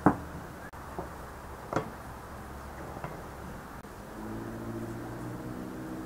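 A large knife chopping boiled chicken on a plastic cutting board: a sharp knock, the loudest, then a few softer knocks over the next three seconds. A low steady hum joins about four seconds in.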